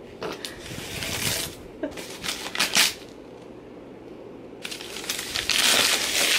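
Newspaper gift wrapping being torn and crinkled as a present is unwrapped by hand, in three bursts of rustling, the last and loudest in the second half.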